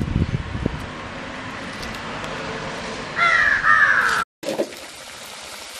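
A crow cawing twice in quick succession, loud, about three seconds in. Low rumbling thumps near the start.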